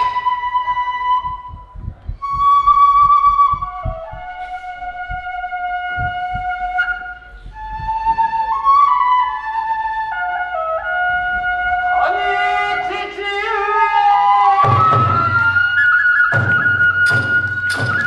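Kagura music: a transverse bamboo flute plays a wavering, stepping melody over scattered drum beats. About three-quarters of the way in, heavy drumming and sharp cymbal-like strikes come in under the flute.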